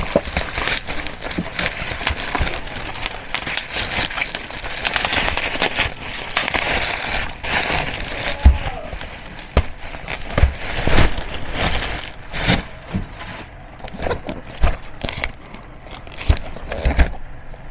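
Plastic mailer bag and bubble wrap crinkling and rustling as a parcel is unwrapped, with several dull knocks as a cardboard box is handled.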